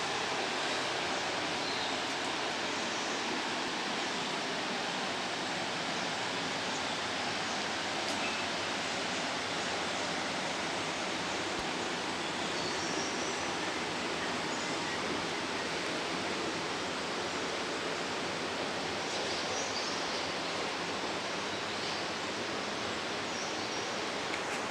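Steady rushing of flowing water, an even unbroken wash, with a few faint short high chirps now and then.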